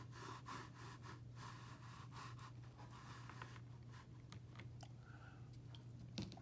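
Faint scratching of a paintbrush stroking across watercolour paper, in short repeated strokes, over a low steady hum. A small sharp tap near the end.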